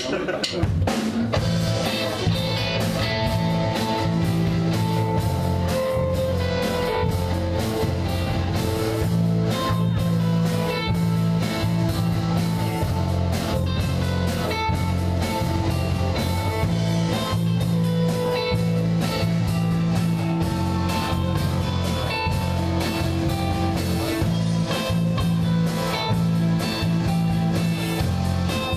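Live rock band kicking in right at the start and playing the song's instrumental opening: distorted electric guitars over a drum kit keeping a steady, driving beat, with no singing.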